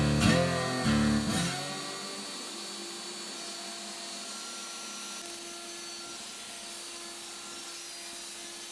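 X-Carve CNC router milling HDPE: its spindle runs with a steady whine and hiss. This follows the last notes of acoustic guitar music, which end about a second and a half in.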